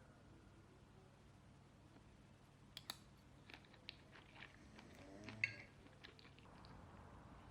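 Faint room tone with a scattered run of light clicks and taps, the sharpest about five and a half seconds in.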